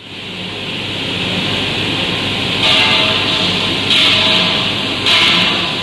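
Aluminium extrusion die blasting machine running, a steady blasting hiss. From about halfway in, the hiss surges louder about every second and a bit, three times.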